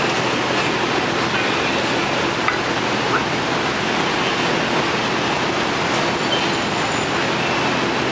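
Steady city street noise: a dense wash of traffic with a low steady hum underneath.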